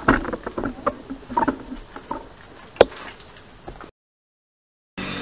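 Irregular knocks and clatter of bicycles being handled close by, with one sharp click near the middle. About four seconds in, the sound cuts out completely for about a second at an edit, and then a steady rush of riding noise starts.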